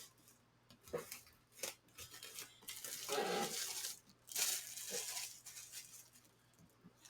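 Paper or plastic packaging rustling and tearing: two longer scraping tears in the middle, with small taps and clicks around them.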